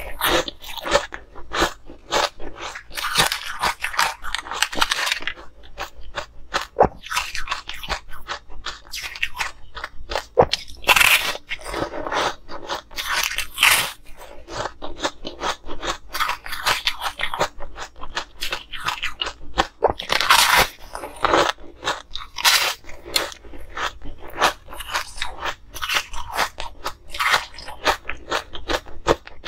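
Hard frozen ice being bitten and chewed from a bar on a stick, close to clip-on microphones. There is a steady, irregular run of sharp crunches and crackles, with heavier clusters of bites now and then.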